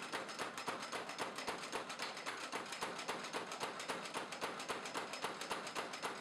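Homemade wooden beam power hammer running, its head striking in a rapid, even rhythm of several blows a second.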